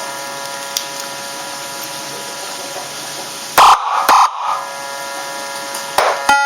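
A 9-tone electronic siren module through a 10-watt horn speaker, holding one steady, even tone. Two short loud blasts break in a little past halfway, and two sharp clicks come near the end.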